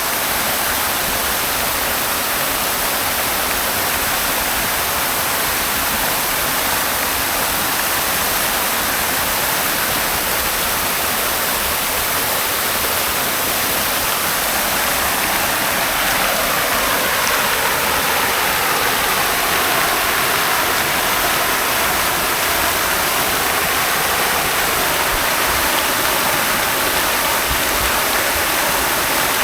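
Water from a fountain splashing and falling in a steady, even rush, its tone shifting slowly through the middle.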